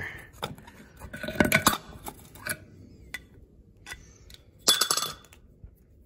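Metal condensate-pump parts clinking and knocking as they are handled and fitted by hand: a cluster of sharp knocks about a second and a half in, scattered small clicks, and a short ringing clink near five seconds.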